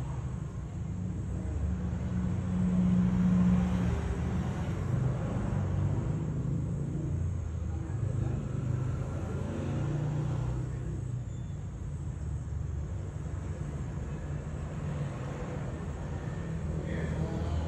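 A low, uneven background rumble that swells and eases over the seconds.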